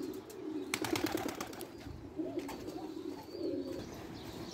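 Domestic pigeons cooing repeatedly, with a short burst of rattling clicks about a second in.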